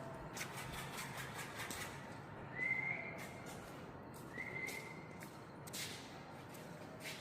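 A cat giving two short, high-pitched mews about two seconds apart, amid scattered light clicks and taps.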